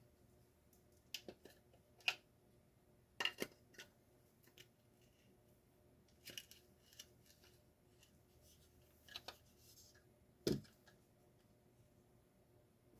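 Scattered light clicks and rattles as the gearbox parts of a Stanley garage door opener are handled, with one heavier knock about ten and a half seconds in.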